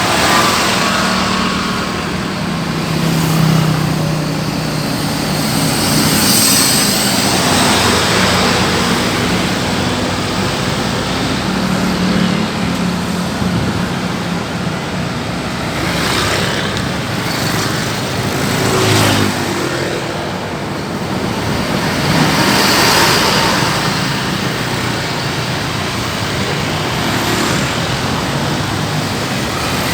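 Road traffic: motor vehicles running and driving past, with a steady engine drone, strongest in the first few seconds.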